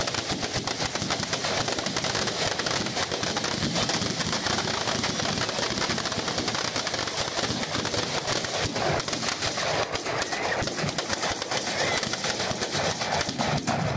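Firecrackers packed inside a burning Ravana effigy going off in a dense, continuous rapid crackle of cracks and pops.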